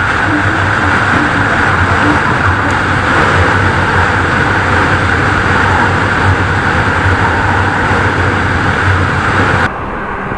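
Steady wind and road noise of a KTM RC 390 motorcycle riding at speed, with a low engine hum under the rush of air. Near the end it cuts suddenly to a much quieter background.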